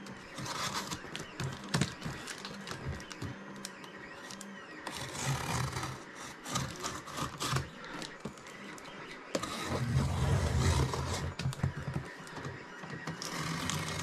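Utility knife slicing through the packing tape and seam of a cardboard box, with irregular scratching, clicks and rustling as the box is handled, louder in two stretches.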